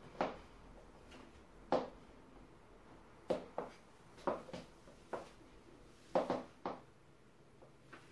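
High-heeled pumps clicking on a wooden floor in slow, uneven steps, with a quick cluster of knocks about six seconds in as the wearer sits down on a chair.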